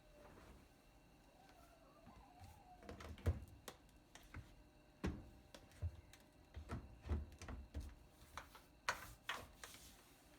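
Light household handling noises: a series of separate knocks and clicks, with a short rustling swish near the end.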